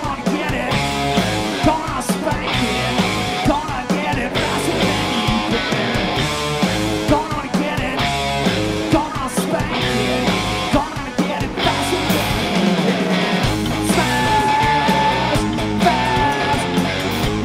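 Live rock band playing: electric guitars over bass and a drum kit, with held and bending guitar notes.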